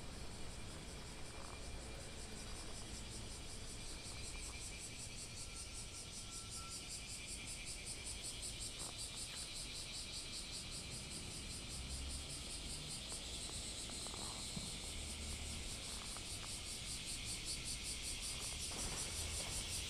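A steady, high-pitched chorus of insects with a fine, rapid pulse, over the low rumble of a bicycle being ridden. It grows a little louder near the end.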